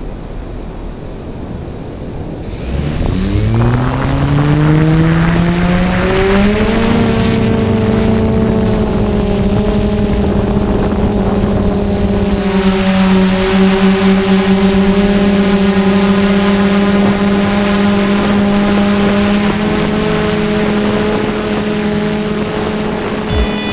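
A quadcopter's electric motors and propellers spin up from rest about two and a half seconds in, rising in pitch for a few seconds as it lifts off. They then settle into a steady, loud whine in flight, heard up close from the camera on the craft.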